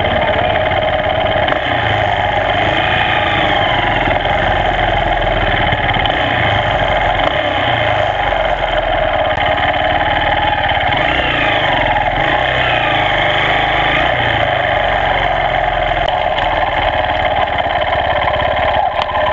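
Small dirt bike engine idling steadily.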